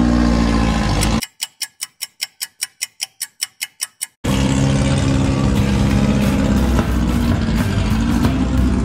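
Background music: a sustained low tone, then about a second in it drops abruptly to a run of sharp ticks, about four or five a second for three seconds, before the full track returns with a steady beat.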